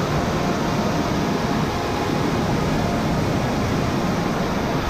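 Whitewater rapids rushing steadily over rock ledges in a loud, even roar of water.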